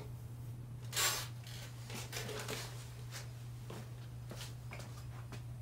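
Fingers scraping and tapping across a steel bench top, gathering tiny cut bits of silver solder: one louder scrape about a second in, then a series of light clicks and taps. A steady low hum runs underneath.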